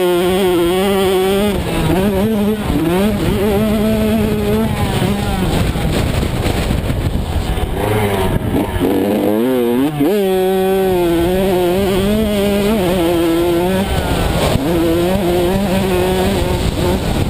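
85cc-class motocross bike engine at race pace, revving up through the gears and dropping back as the throttle is rolled off and opened again. Around nine seconds in the revs fall sharply and then climb again.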